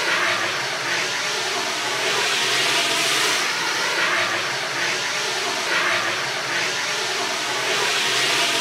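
A steady, loud rushing hiss that swells and eases slightly.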